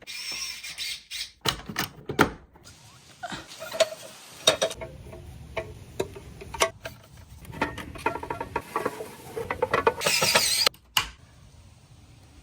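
Scattered clicks, taps and scraping of hand tools and electrical wiring being handled, with a short scratchy hiss about ten seconds in.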